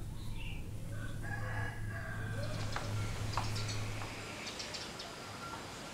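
A rooster crowing once, about a second in, over a low steady hum, with a few light knocks after it.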